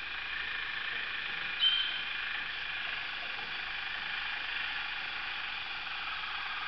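Waterslager song canaries singing a steady, continuous song, with one short sharp whistled note about a second and a half in.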